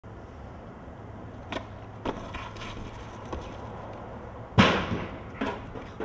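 Skateboard on a rooftop: a few light knocks and clacks of the board, then one loud board slap a little past halfway, followed by a smaller one shortly after.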